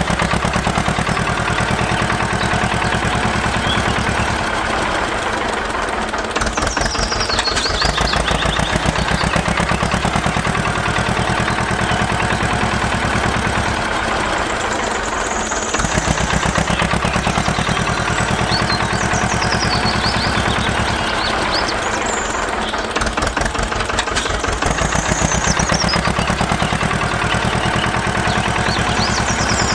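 An engine-driven machine running steadily with a rapid, even knocking beat. Every few seconds its low rumble drops away and then comes back, as if under changing load. Faint high squeaks come and go.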